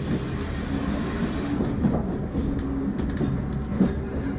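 Heritage railway passenger carriage running along the track, heard from inside: a steady low rumble and rattle with occasional short knocks from the wheels and running gear.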